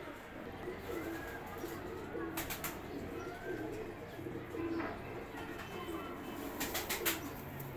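Domestic pigeons cooing repeatedly in low, wavering calls. A quick run of sharp clicks comes about two and a half seconds in and again near the end.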